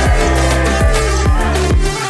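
Background music with a steady beat: a kick drum about every 0.4 s under sustained melodic lines.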